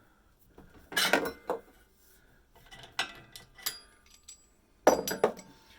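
Metal tool and parts clinking and clattering in several short bursts, some with a brief metallic ring, as a socket wrench works the nuts on an espresso machine's heating-element base.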